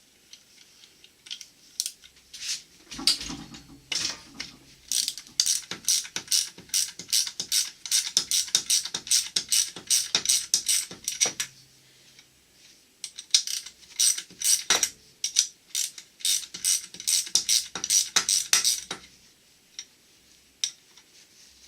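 Hand ratchet wrench clicking in quick repeated strokes, in two long runs with a short pause between them.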